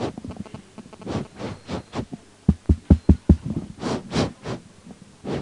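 Microphone being handled and tapped as a sound check: five quick, dull low thumps about two and a half seconds in, among rustling and handling noise.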